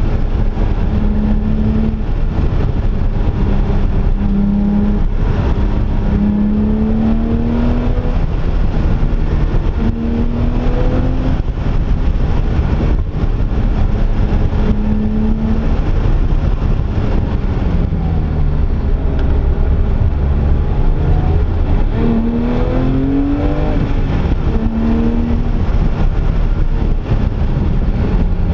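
Porsche 997.1 GT3's naturally aspirated flat-six heard from inside the cabin under way, its revs rising and falling again and again as the car accelerates and changes gear through the bends. A steady low road and tyre rumble runs underneath.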